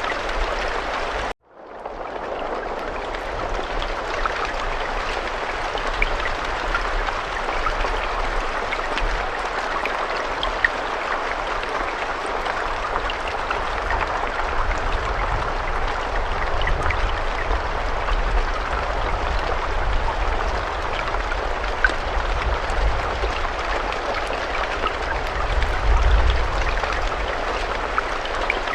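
Steady rain, a dense hiss with scattered drop ticks and a low rumble beneath. About a second and a half in, it cuts out abruptly and fades back in over about a second.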